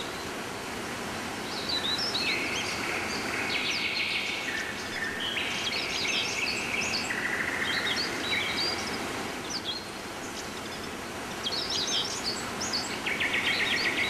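Rainforest birds calling: many short high chirps and a few buzzy trills from several birds overlapping, over a steady background hiss.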